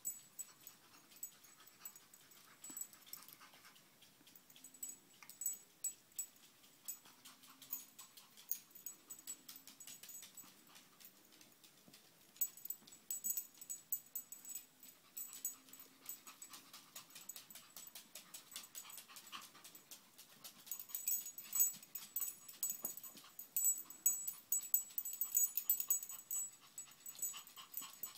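Pomeranian breathing hard and whimpering faintly while humping a plush toy in a fabric dog bed, with quick rustling and scratching of the toy and bed. The rustling is busiest about halfway through and again near the end.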